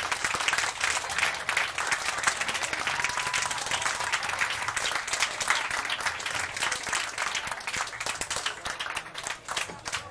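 Audience applauding, the clapping growing sparser and quieter near the end.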